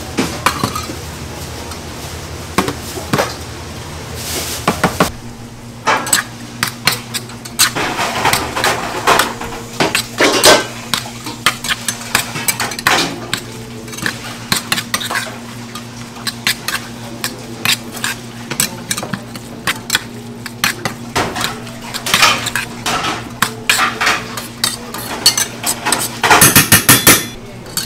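A spoon scraping and clinking against a stainless steel bowl as bibimbap rice, bean sprouts and gochujang are stirred together, many quick clinks throughout. A fast, louder run of clinking comes near the end. A steady low hum sits underneath from about five seconds in.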